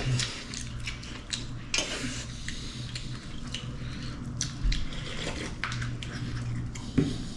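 Eating sounds at a meal: scattered light clinks and taps of dishes and cutlery, over a steady low hum.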